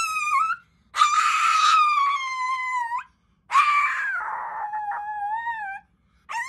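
Small short-haired dog howling: long, high-pitched, wavering howls of about two seconds each, with short pauses between. One howl ends just after the start, two full howls follow, and another begins at the very end.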